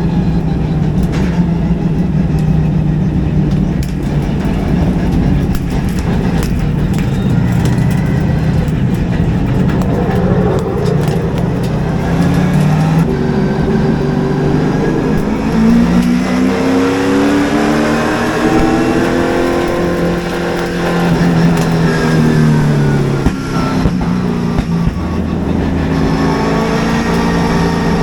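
Super late model race car's V8 engine heard from inside the cockpit. It runs at a low, steady speed at first, then from about halfway through revs up and eases off in long swells, rising again near the end. The car is pacing under caution ahead of a restart.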